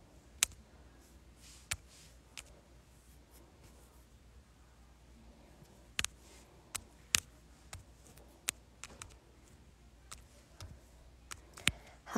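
Scattered short, sharp taps and clicks at uneven intervals, about a dozen, over a faint low hum.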